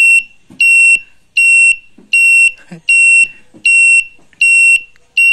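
Italika FT150 motorcycle's turn-signal beeper sounding a loud, high, even beep about once every 0.8 seconds, around eight times. The flasher is cycling and sending pulses down the grey wire, but the turn-signal lamps stay dark because that wire is broken further along the harness.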